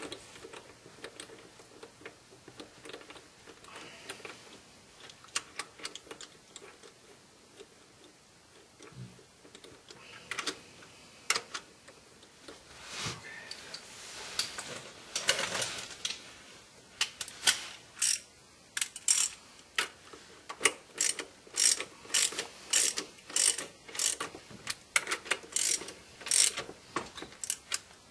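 Hand ratchet running down bolts on a BMW E46 flywheel, clicking as the handle swings back and forth. There are a few scattered clicks and taps at first, then steady strokes at about one and a half a second through the second half.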